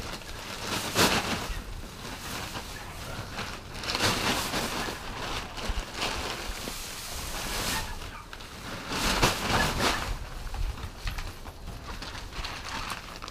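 Rustling and crackling of a plastic sack and handfuls of cut grass being pulled out and stuffed into a wire-mesh feeder, in several irregular bursts.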